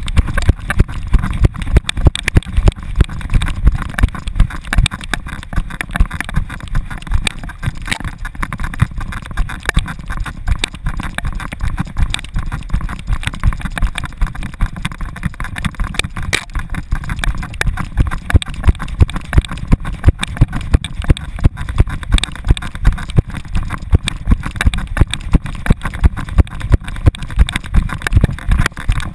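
American Staffordshire Terrier running with a camera strapped to its back: a steady rumble of wind and movement, cut by a regular thump from each stride about twice a second.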